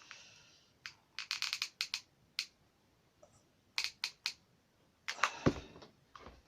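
Pieces of card and small tools being handled on a work surface: scattered light clicks and taps, with a quick run of them about a second in, then a short scraping rustle that ends in a soft thump about five seconds in.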